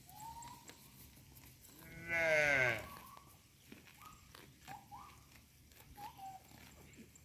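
A single short bleating call from a farm animal about two seconds in, falling in pitch with a wavering tremor. It sits over faint scattered clicks of grass being cropped and a few short bird chirps.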